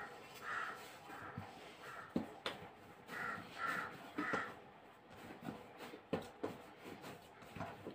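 Dough being kneaded by hand in a steel plate, giving soft knocks and slaps. Over it a bird calls repeatedly, about seven short calls in the first half.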